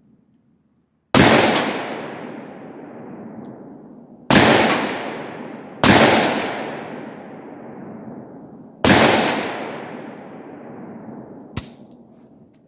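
Semi-automatic AR-10 rifle firing .308 rounds: four loud shots, the second pair close together, each trailing off in a long rolling echo. A short click follows near the end.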